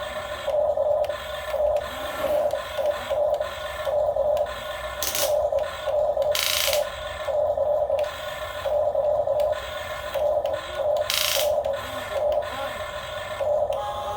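Small electric motor and gears of a radio-controlled construction model whining in repeated short bursts, starting and stopping as the controls are worked. Three brief hissing bursts come in between.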